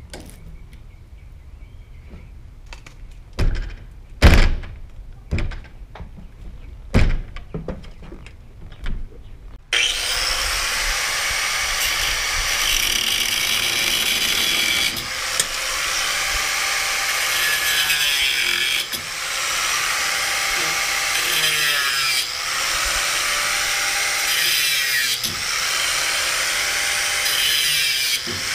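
Several sharp knocks on the truck's back panel. Then a corded power tool starts abruptly and runs almost continuously, cutting into the metal header above the box van's rear door, easing off briefly a few times.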